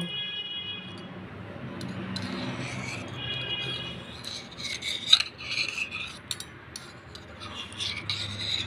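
A table knife scraping around the inside wall of a stainless steel bowl, loosening a steamed egg from the oiled metal. The scrapes come in short, irregular strokes, busier from about halfway through.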